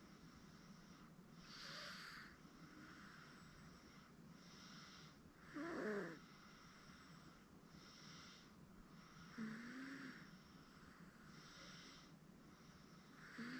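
Faint snoring breaths of a sleeping 8-month-old baby, a breath about every second or so. A few short grunts break in, the loudest about six seconds in.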